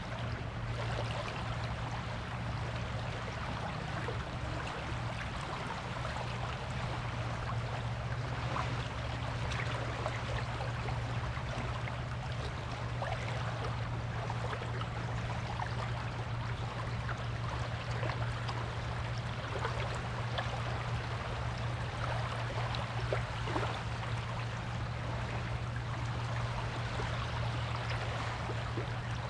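Gentle surf washing on a beach: a steady hiss of water dotted with many small crackles and fizzes, without any big breaking wave. A steady low hum runs underneath.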